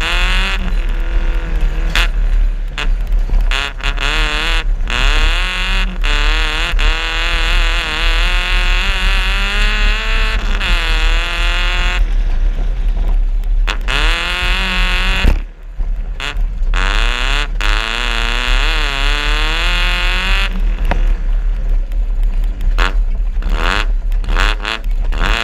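Suzuki Vitara 2.0 engine revving hard off-road, its pitch climbing and dropping again and again as the throttle is worked, over a steady low rumble. Sharp knocks come now and then, and the engine sound drops out briefly about midway.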